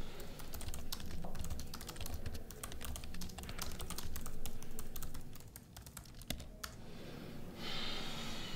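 Typing on a computer keyboard: a quick, uneven run of key clicks that stops about seven seconds in. A short soft hiss follows near the end.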